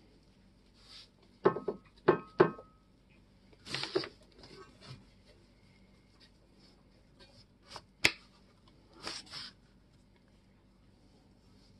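Handling sounds of a paintbrush dabbing white paste onto an antique iron hammer axe. About a second and a half in come three sharp knocks in quick succession, each with a brief ringing tone. Short brushy scrapes follow, then a sharp click about eight seconds in.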